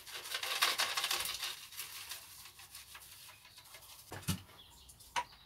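Granular fish, blood and bone fertiliser shaken from a cardboard box, pattering onto compost and dying away after about two seconds. Two knocks near the end.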